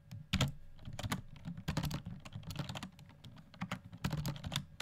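Typing on a computer keyboard: an irregular run of individual keystroke clicks as code is entered and edited.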